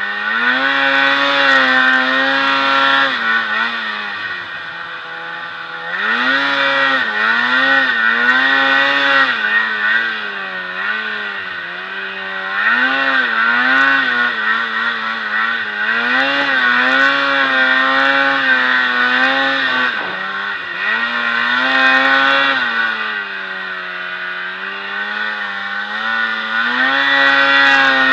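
Snowmobile engine running hard close up, its pitch climbing and holding steady as the throttle opens, then dropping back when it eases off, over and over every few seconds.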